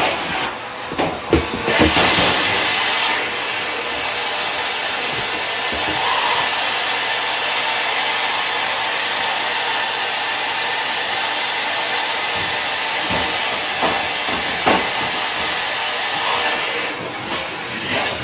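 Vacuum cleaner running steadily, with a few brief knocks as it is worked.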